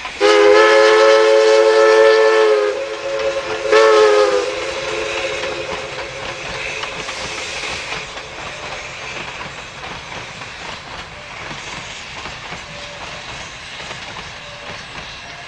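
Narrow-gauge steam locomotive's chime whistle sounding a chord of several notes, one long blast of about two and a half seconds and then a short one. After that comes the quieter, steady running noise and clickety-clack of the train rolling past.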